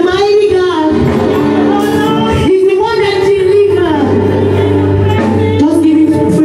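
Music with singing, a woman's voice prominent, over an accompaniment of long held notes.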